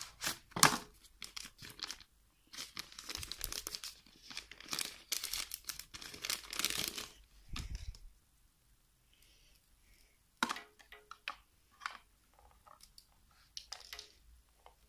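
Cardboard earphone box opened and a plastic packing bag crinkling and tearing as the earphones are pulled out. After about eight seconds this gives way to fainter clicks and rustles of the earphones and cable being handled.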